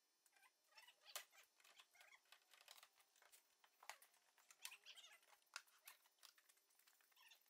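Near silence, with faint scattered clicks and brief high chirps.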